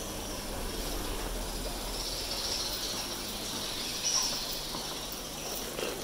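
Steady hissing background noise with a low hum. A thinner, higher hiss rises over it for a few seconds in the middle.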